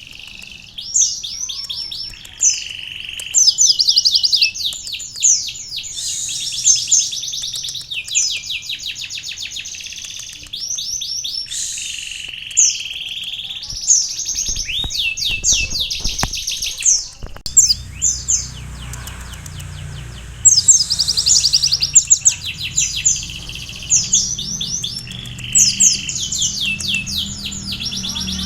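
Kolibri ninja sunbird singing a fast, continuous song of rapid trills and quick repeated high notes, with canary phrases worked into it (a canary-tutored song).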